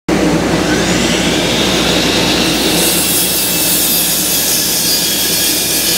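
Power saw cutting wood, a loud steady noise.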